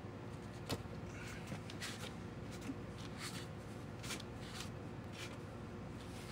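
Metal weight plates clack together once, sharply, then scrape and rustle against each other and against chalked hands several times as the plates are set together and gripped for a pinch.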